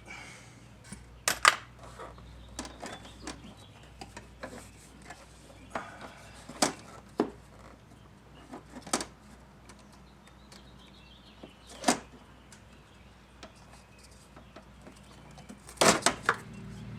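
Scattered clicks and clinks of hand tools and small hard parts being handled during dashboard disassembly, with a few louder clacks about a second and a half in, around twelve seconds in, and near the end.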